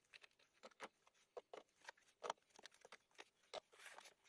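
Faint, scattered rustles and small clicks of packing material and plastic being handled as a parcel is unpacked from a cardboard box.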